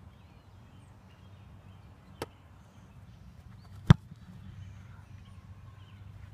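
An American football being punted: one loud, sharp thud of the kicker's foot striking the ball nearly four seconds in. A fainter sharp click comes about two seconds in.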